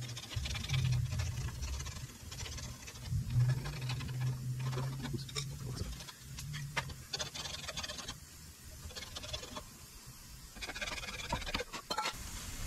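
Light handling noise: small clicks and scrapes of metal parts and hand tools as a sensor is worked into a car's steering knuckle and tools are moved about on a concrete floor. A low steady hum runs under the first half and stops about seven seconds in.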